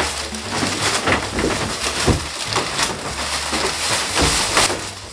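Old wooden sliding door rattling and knocking in its frame as it is shaken and wrenched, a string of irregular clatters; the door is stuck and will not lift out of its track.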